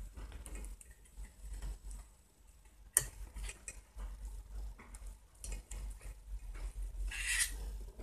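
Light clicks and scraping of multimeter test probes being handled and touched against a fridge compressor's terminal pins, with one sharper click about three seconds in and a short rustle near the end.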